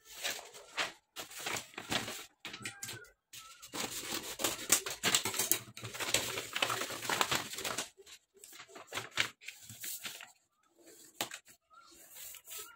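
Rustling and crinkling of a sheet of yellow cloth being handled, folded and smoothed flat on a cutting table, in irregular bursts, busiest in the middle.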